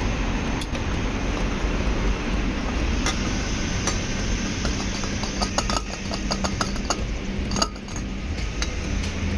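Fuel additive pouring from an upended aluminium bottle into a car's fuel filler neck. A run of quick clinks and ticks comes from about five to eight seconds in, over a steady background hum.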